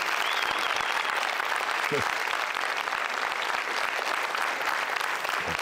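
Audience applauding steadily, with one short voice calling out about two seconds in.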